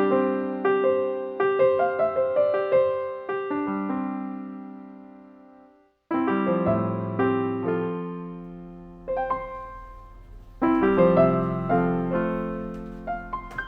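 Background piano music: phrases of struck notes that ring and die away, broken by a brief silence about six seconds in before the playing starts again.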